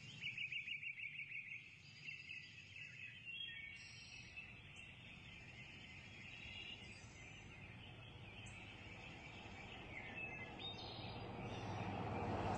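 Faint birdsong: a quick trill lasting about a second and a half at the start, then scattered high chirps over a soft hiss. Near the end a broad rushing noise swells up steadily.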